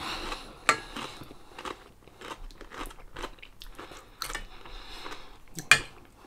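A person chewing a mouthful of chicken curry close to the microphone: soft wet mouth smacks and clicks, with a couple of sharper clicks, one near the start and one near the end.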